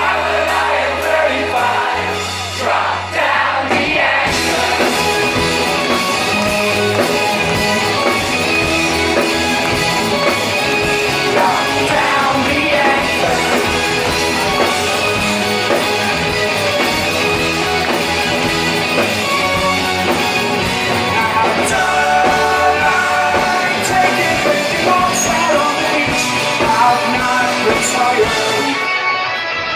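Rock band playing live, with a lead vocal singing over the full amplified band.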